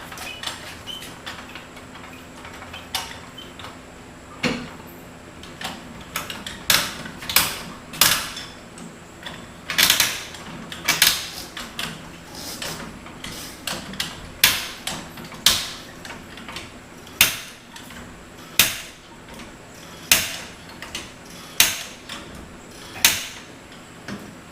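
Hydraulic jack being pumped to lift a small pickup truck: a short, sharp metallic click on each stroke of the handle. After a few faint clicks, the strokes come steadily about one every second and a half from about a quarter of the way in, around a dozen in all.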